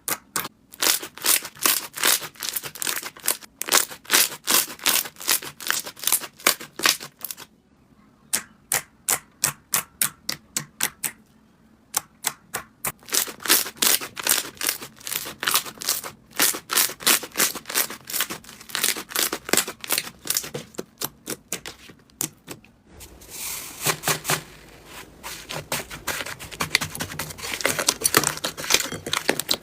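Slime being poked and pressed by hand, making runs of sharp, crisp clicks and pops several times a second with short pauses. Near the end it turns into a denser, wetter crackle.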